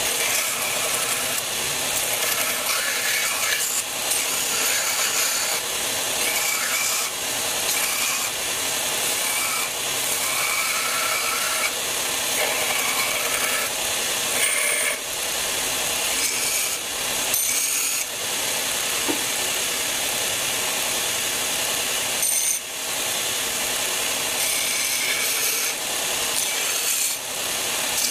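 Belt grinder grinding a steel knife blade made from a spanner: a steady abrasive rasp of metal on the running belt. It breaks off briefly a few times as the blade is lifted and re-set, about halfway through and near the end.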